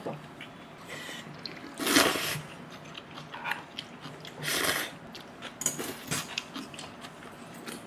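A person slurping up Jjapagetti black-bean noodles, two hissy slurps about two seconds apart near the start and middle, with chewing and small clicks in between.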